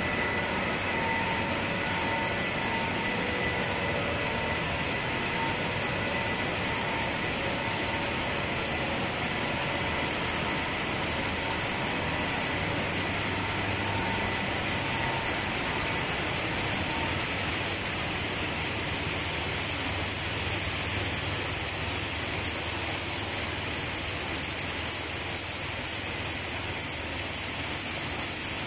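Steady mechanical noise of a running dry pet food and fish feed production line: the dryer, its fans and the conveyors, with no single machine standing out.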